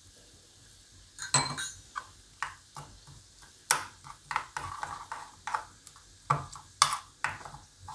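A steel spoon stirring and scraping chilli-garlic paste thinned with a little water in a plastic bowl. Irregular clinks and scrapes start about a second in.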